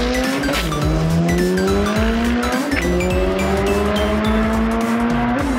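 Car engine at full throttle accelerating down a drag strip, climbing steadily in pitch through the gears, with a gear-change drop about half a second in and another near the end.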